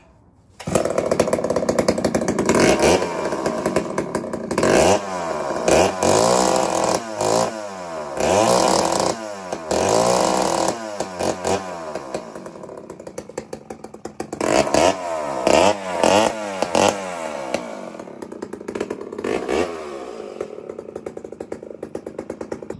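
Vintage Poulan S-72 two-stroke chainsaw with a six-foot bar starting suddenly about a second in, then revved up and down over and over as the throttle is blipped, easing back to a lower idle near the end.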